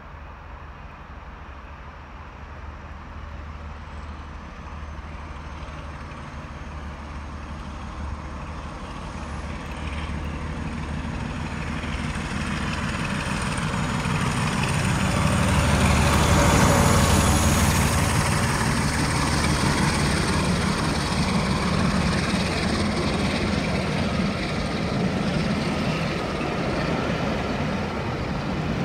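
Diesel locomotive hauling a train of coaches approaches with its engine running, its low drone growing louder until it passes about halfway through. The coaches then keep rolling by.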